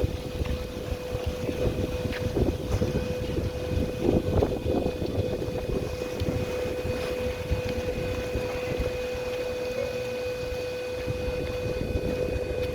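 Steady whine from a camera gimbal's motors, held at one pitch throughout, with a fainter higher tone joining about three seconds in. Wind rumbles on the microphone underneath.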